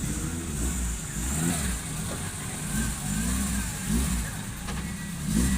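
Vehicle engine running, its pitch rising and falling again and again as it is revved and let back down.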